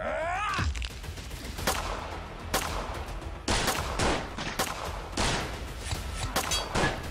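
A shout, then a ragged string of about a dozen pistol gunshots, roughly two a second. These are added gunfire effects for toy pistols.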